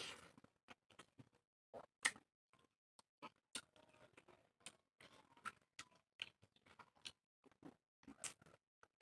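Quiet eating sounds: chewing with scattered small clicks and mouth smacks at an irregular pace, one sharper click about two seconds in.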